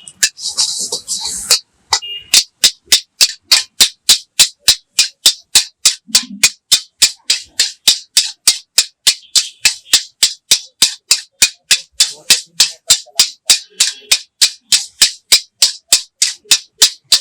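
A short hiss, then a metal ladle striking the wok (kadhai) in a steady rhythm, about three sharp clangs a second, as the fried rice is stir-fried and tossed over the flame.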